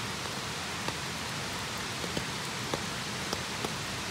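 Steady hiss of falling water, with light ticks like drops landing every second or so.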